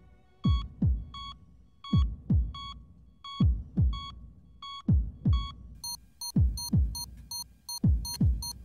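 Heartbeat sound effect with a patient-monitor beep: pairs of deep lub-dub thumps about every second and a half, each pair marked by short electronic beeps. About six seconds in, the beeps turn higher and come faster, about three a second.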